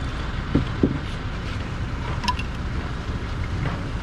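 Steady low rumble of street traffic with wind on the microphone, with two soft knocks about half a second in and a short, ringing metallic clink a little past two seconds.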